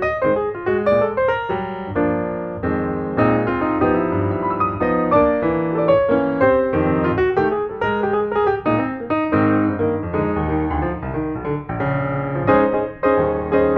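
Background piano music, a continuous flow of notes.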